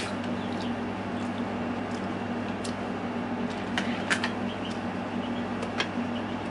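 A steady low hum of room noise with a few sharp clicks of a meal being eaten: a fork tapping the aluminium foil takeout pans and a plastic water bottle being handled, most of them around four seconds in.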